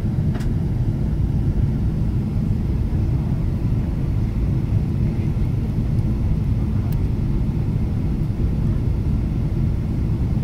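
Steady low rumble of engine and airflow noise inside a passenger jet's cabin as it descends to land.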